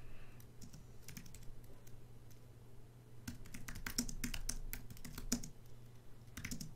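Typing on a computer keyboard: irregular keystroke clicks, coming faster and louder from about three to five and a half seconds in.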